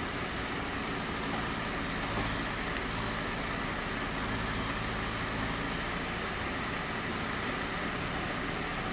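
Diesel engine of a Terex TLB 740S backhoe loader running steadily under working load.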